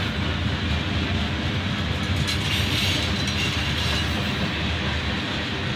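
Freight train cars rolling steadily past, with the continuous noise of steel wheels running on the rails.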